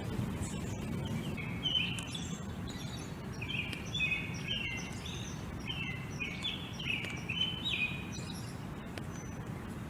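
Small birds chirping in quick, repeated short calls over a steady low background rumble; the chirping thins out near the end.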